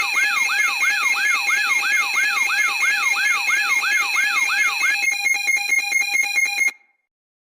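Electronic alarm wailing in quick pitch sweeps, about three a second. About five seconds in it switches to a rapid pulsing beep, then cuts off suddenly.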